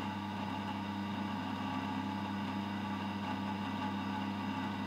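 Omega 8227 horizontal slow juicer's electric motor running with a steady, even hum, its auger turning as the last carrot pulp is pushed out.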